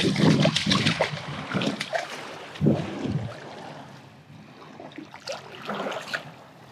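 A hooked sea robin thrashing and splashing at the surface of shallow surf water, loudest in the first second with another burst a little later. Then fainter sloshing as feet wade through the ankle-deep water toward it.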